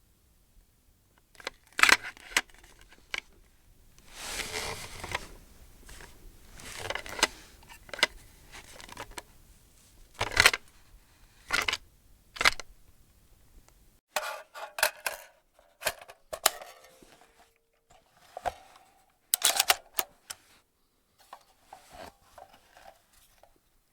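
Gun mechanism being handled: a series of sharp metallic clicks and short sliding scrapes at irregular intervals, with a second, separate sequence of clicks starting about halfway through.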